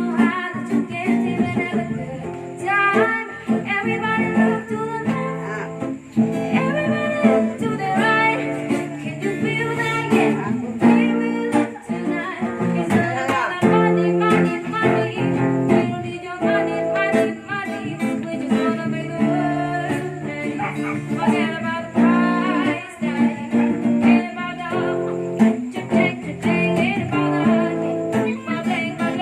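A song with guitar and a singing voice.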